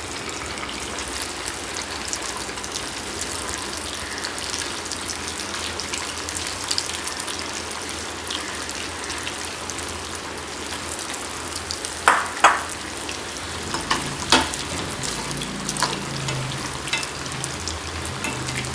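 Pieces of coriander-and-moong-dal vadi deep-frying in hot oil in a steel kadhai, a steady bubbling sizzle. A few sharp clinks come about twelve to fourteen seconds in.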